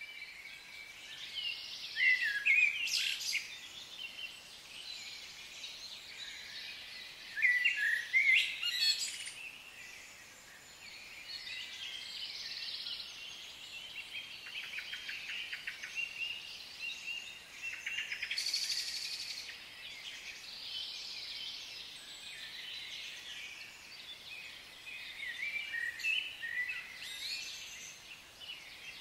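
Woodland birdsong: several birds singing and calling over one another, with louder bursts of song a few times.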